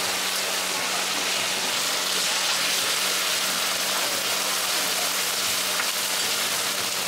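Banana-leaf-wrapped grilled fish (ikan bakar) sizzling steadily on a hot flat griddle, with a steady low hum underneath.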